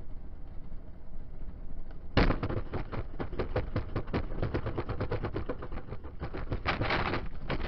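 A vehicle running off the road, recorded from inside the cab: a low road rumble, then about two seconds in a sudden loud, rapid rattling and clattering as it jolts off the pavement over rough ground and grass. The rattling grows denser near the end.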